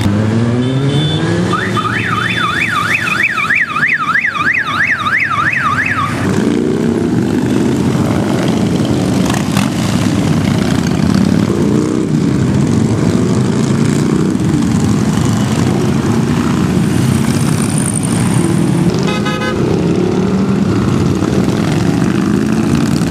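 A stream of parade motorcycles, mostly big cruisers, running and revving as they ride past. From about 2 to 6 s an electronic siren-like tone warbles up and down about four times a second, and a short horn-like tone sounds near the end.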